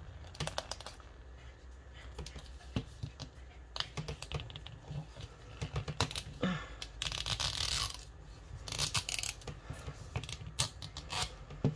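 Fingernails clicking and scratching on a hard plastic toy capsule ball, picking for its tear strip, with a longer stretch of rustling, tearing plastic wrapper about seven seconds in.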